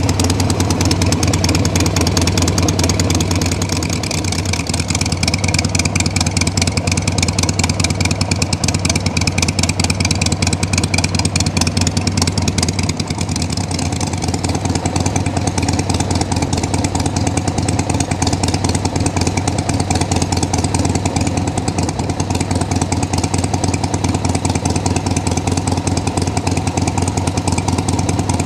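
2001 Harley-Davidson XLH-883 Sportster's air-cooled V-twin running at a steady idle, its level dipping slightly twice.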